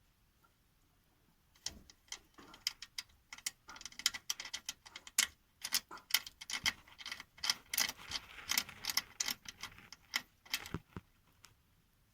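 Hand tool working a thread-cutting tap back out of a bolt hole for the engine skid plate, making many quick, irregular metallic clicks and ticks that start about a second and a half in and stop near the end.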